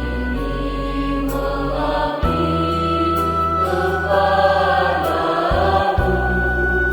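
Choir singing a slow hymn over an instrumental accompaniment that holds long, low bass notes, changing a few times.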